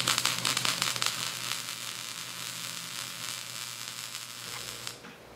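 MIG/MAG (GMAW) welding arc crackling and sizzling, loud and irregular at first while voltage and wire feed speed are not yet balanced, then settling into a steadier, quieter sizzle as the plate warms, and stopping about five seconds in.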